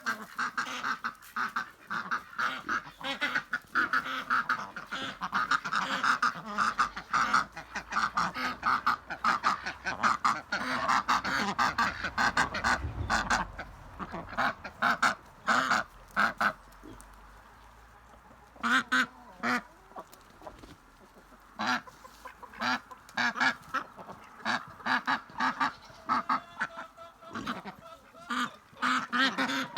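A flock of ducks quacking, many short calls overlapping in a busy chorus that eases off for a moment a little past halfway, then picks up again.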